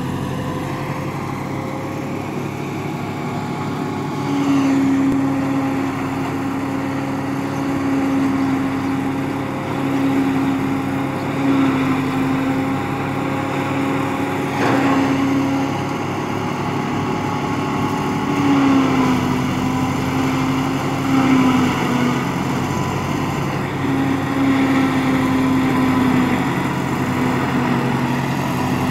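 Massey Ferguson 260 tractor's three-cylinder diesel running steadily under load, powering a maize silage chopper. A whining tone over the drone comes and goes.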